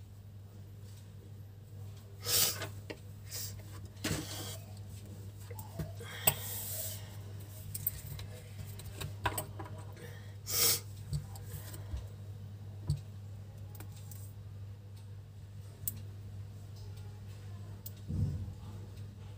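Scattered handling noises of tabletop craft work: light knocks, rustles and plastic clicks as a plastic craft-glue bottle is picked up, opened and squeezed. A steady low hum runs underneath.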